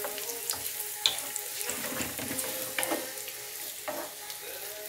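Strips of squash and carrot sizzling in hot olive oil in a wide metal pan. A wooden spatula stirs them, scraping and knocking against the pan several times.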